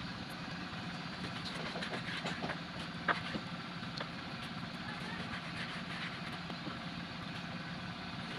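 A few sharp clicks of a kitchen knife and squid pieces against a wooden chopping board, over a steady low background noise with a hum.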